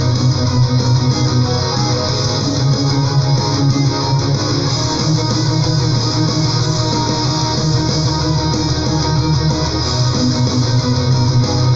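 Melodic metal song playing loud and steady, led by electric guitars.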